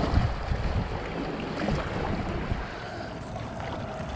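Small waves washing and splashing against the shoreline rocks, with wind buffeting the microphone.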